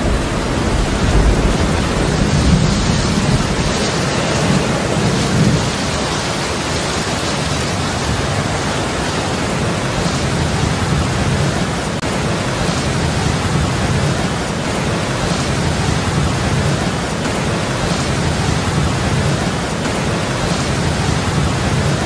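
Thunderstorm sound effect: steady heavy rain with low rumbles of thunder, loudest over the first few seconds.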